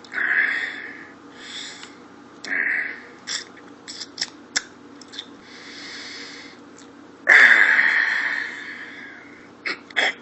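A man's wordless "dad noises": breathy sniffs, wheezy exhales and small mouth clicks. About seven seconds in comes a loud, long exhale with a falling groan.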